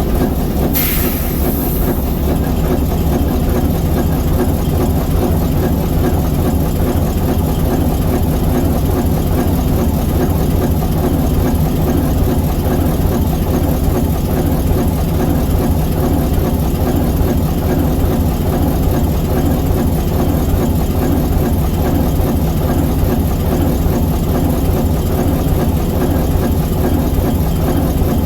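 ALCO 539T turbocharged inline six-cylinder diesel prime mover of an S4 locomotive running steadily. A short hiss comes about a second in.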